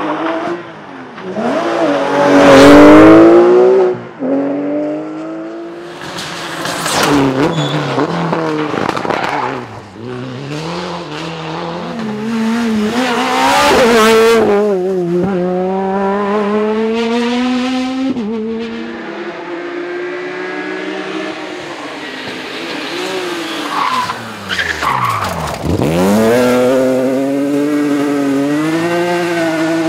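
Rally cars driven flat out on a special stage, engines revving high and dropping through gear changes as they pass close by several times. The loudest pass comes about three seconds in.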